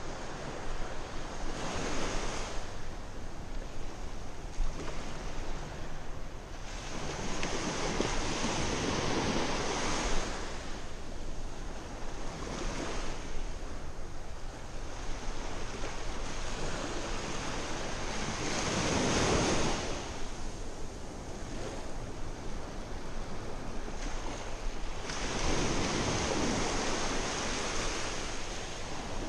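Small waves breaking and washing up a sandy beach, the wash swelling and fading every several seconds.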